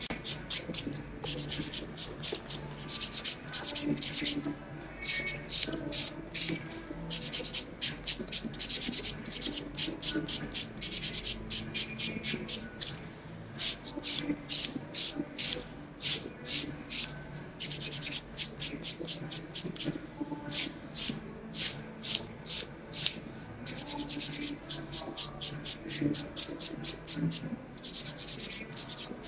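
Nail file and buffer block rasping on fingernails in quick back-and-forth strokes, about four a second, in runs with short pauses between them.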